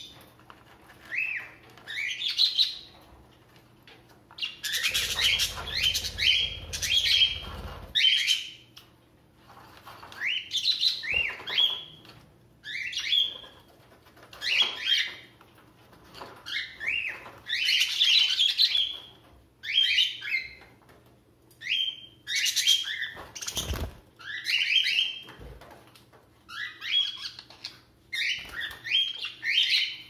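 Budgerigars chirping in an aviary: short rising chirps in quick clusters, on and off throughout. About five seconds in there are three seconds of rustling noise, and a single knock comes late on.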